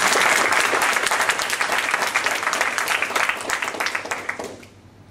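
A small audience applauding, the clapping dying away about four and a half seconds in.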